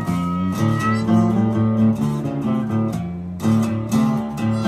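Acoustic guitar music, with a short break about three seconds in.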